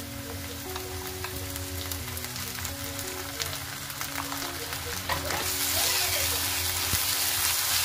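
Chopped onions and green chillies sizzling in hot oil in a non-stick kadai, with a wooden spatula scraping and stirring as ginger-garlic paste is mixed in; the sizzle grows louder about five seconds in. Soft background music with held notes runs underneath.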